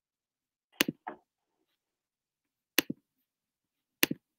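Three short sharp clicks, about one and a quarter to two seconds apart, the first followed closely by a softer second click, with dead silence between them.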